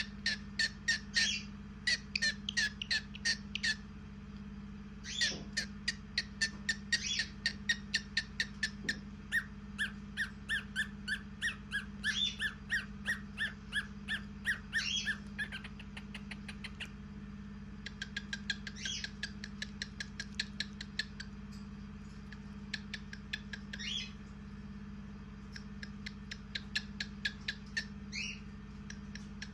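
Cockatiels chirping in quick runs of short repeated notes, broken by brief pauses, with a few louder calls among them. A steady low hum runs underneath.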